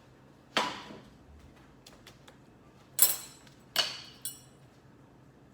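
Dishes and kitchen utensils knocking and clinking: four sharp strikes, the two loudest, about three seconds in and just after, ringing briefly.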